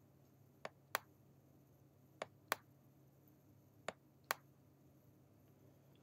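Computer mouse button clicking faintly, three times a press followed by a release about a third of a second later, as line segments are drawn with a click-and-drag.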